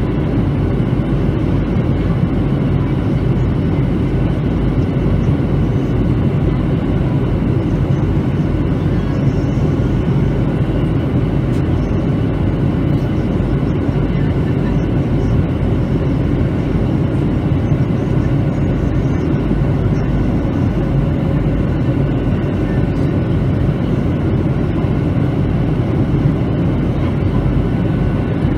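Steady cabin noise inside a Boeing 737-900 in flight: the CFM56 engines' hum and the rush of airflow, heaviest in the low range, with a few faint steady tones above it.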